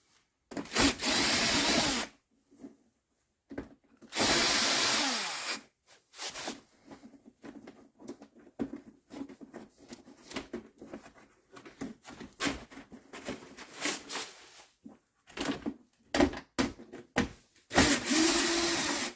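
A power drill-driver runs in three bursts of one to two seconds, backing out the screws that hold a car's lower bumper splash pan. The pitch falls as the second burst winds down, and small clicks and knocks of handling come between the bursts.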